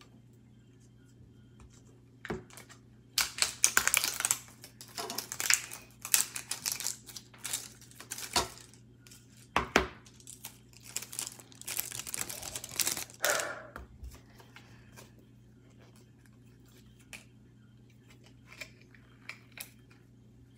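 Thin clear plastic wrapping being torn and crinkled off a slime tub in a run of sharp rustling bursts lasting about ten seconds, then only a few faint taps.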